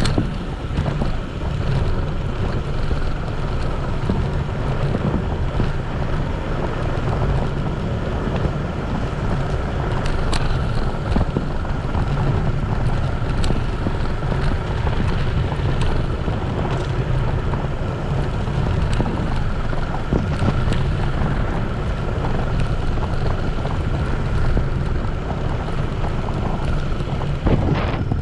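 Steady wind buffeting a bike-mounted camera's microphone while riding a dirt road, over a low rumble of the tyres on gravel, with a few sharp ticks of stones or rattles.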